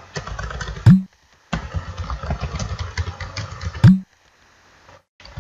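Fast typing on a computer keyboard close to the microphone, with two heavy key strikes about three seconds apart, each followed by a brief break in the typing.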